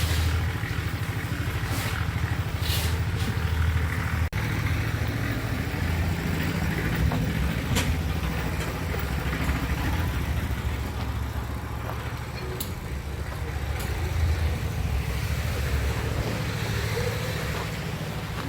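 A motor vehicle's engine running steadily with a low drone, heard from in or near the moving vehicle; the sound breaks briefly about four seconds in.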